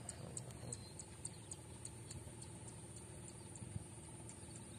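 Faint outdoor ambience: an insect chirping high and rhythmically, about three to four chirps a second, over a steady high buzz. A single soft thump comes about three-quarters of the way through.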